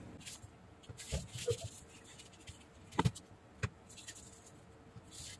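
Faint handling noises on a workbench: a few light clicks and knocks, the sharpest about three seconds in, as multimeter probes are put down and a power-supply circuit board is picked up and moved.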